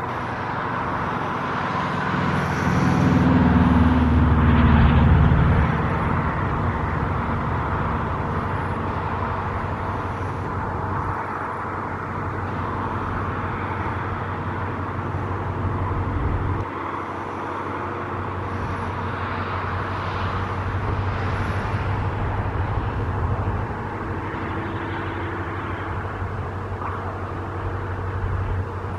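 Motor vehicles going by with a steady rumble. One vehicle is loudest about three to five seconds in, and fainter swells follow later.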